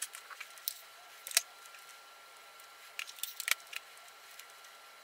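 Quiet crinkles and clicks of masking tape being handled, torn and pressed onto a small die-cast car body, in a few short clusters: at the start, about a second and a half in, and around three seconds in.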